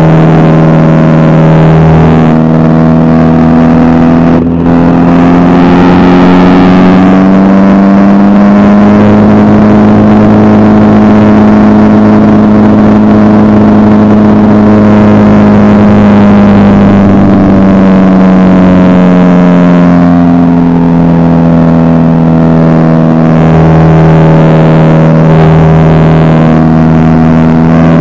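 Aerobatic biplane's piston engine and propeller running loud and steady through an aerobatic sequence. Its pitch rises over a few seconds about a third of the way in, holds, then falls back about two-thirds through, with a brief dip about four seconds in.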